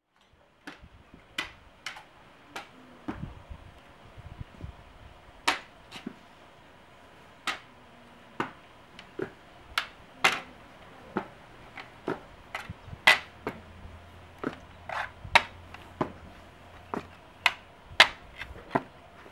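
A wooden walking stick tapping on a tiled path, sharp irregular taps about one or two a second as an old woman walks slowly with it.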